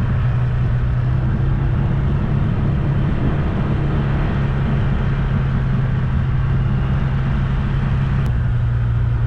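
Vehicle engine running at a steady speed with road noise, heard from on board while driving: a constant low hum over rumble.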